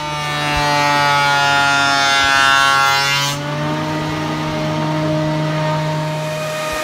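Wood shaper running with a steady high whine while its cutter mills the edge of a wooden drawer front. For the first three seconds or so a loud, noisy cutting sound rides over the whine and the motor's pitch sags slightly under the load. After that the machine runs on steadily without cutting.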